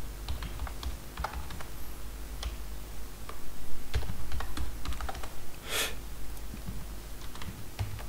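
Typing on a computer keyboard: irregular keystrokes entering data, over a steady low hum.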